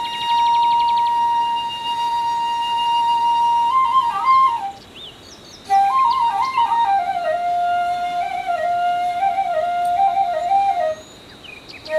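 Background flute music: a long held note, then ornamented melodic phrases, with a brief pause about five seconds in and another near the end.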